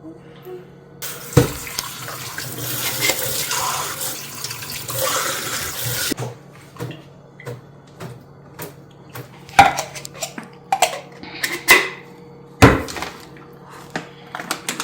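Water running from a kitchen tap for about five seconds, then shut off sharply, followed by several separate clattering knocks of kitchenware, the loudest near the end.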